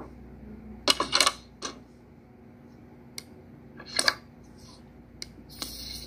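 A series of sharp clicks and knocks: a quick cluster about a second in, another about four seconds in, single ones between, and a short rattle near the end.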